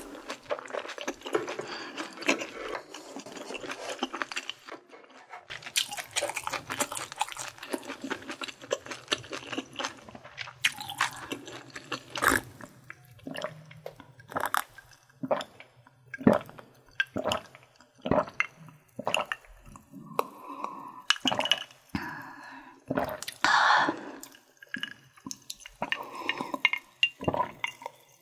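Close-up mouth sounds of eating: chewing food, then drinking water from a glass mug in gulps, a sharp swallow about every second through the second half.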